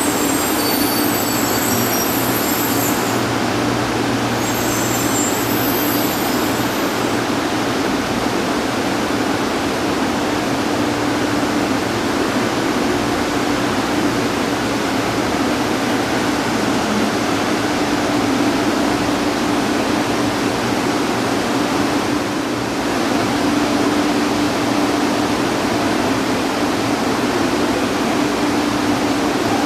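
Shinkansen bullet train running along the station track: a loud, steady rolling noise with a low hum, with high-pitched squeals during the first seven seconds.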